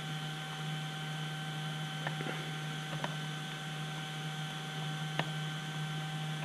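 Steady electrical hum and hiss of room tone, with a few faint clicks, about two, three and five seconds in, as thin wires are pressed into the channel of a foam wing.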